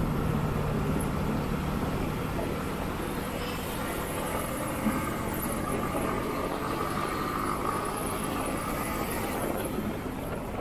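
Motorcycle engine running steadily while riding at moderate speed, mixed with wind and road noise from the moving bike.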